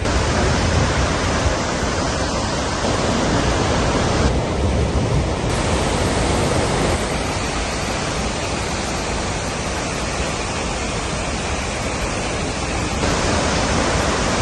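Steady, loud roar of Victoria Falls' falling water, a dense even rush of noise. Its character shifts abruptly a few times.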